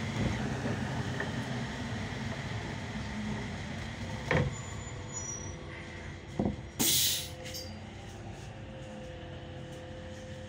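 Solaris Urbino 18 III articulated city bus slowing, its running noise fading. Two knocks come partway through, then a short, loud hiss of compressed air about seven seconds in, typical of the air brakes or door pneumatics as the bus halts. After that it stands with a steady low hum.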